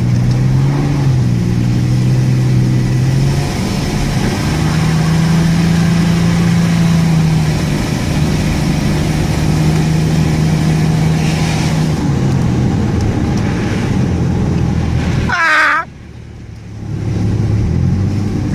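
Ford Ranger pickup's engine running under changing throttle, its pitch holding steady and then shifting in steps. Near the end the sound drops away abruptly, with a short wavering high tone, then builds back up.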